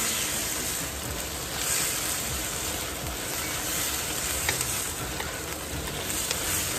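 Diced pork with garlic and onions sizzling steadily in a nonstick wok as it is stir-fried with a wooden spatula, with a few light clicks of the spatula against the pan. The pork is sautéing toward browning.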